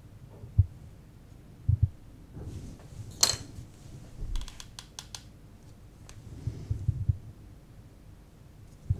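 Hands handling wooden fish on a backing board as they are pressed into place: dull knocks and taps, a short bright scrape about a third of the way in, and a quick run of small clicks soon after.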